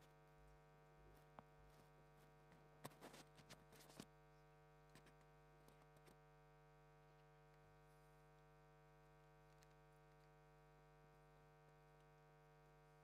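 Near silence with a steady electrical mains hum, broken by a short cluster of faint clicks and knocks about three seconds in.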